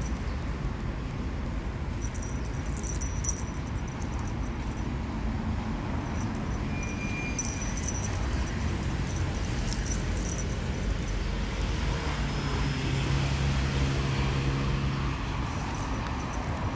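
Light metallic jingling in a few short spells over a steady low rumble, with a low hum rising for a few seconds near the end.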